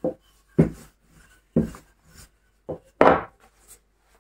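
Wooden rolling pin rolling out dough on a table, giving several separate dull knocks about a second apart, the loudest about three seconds in.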